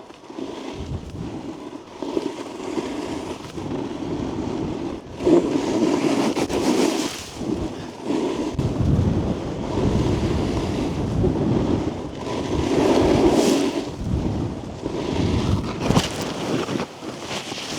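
Snowboard edge scraping and sliding over snow, swelling and fading with each turn, with wind rushing over the microphone.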